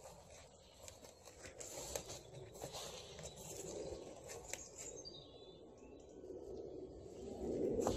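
Footsteps through woodland undergrowth and over a stony dirt path, with crunching and rustling of leaves and plants, louder rustling near the end. A few faint bird chirps.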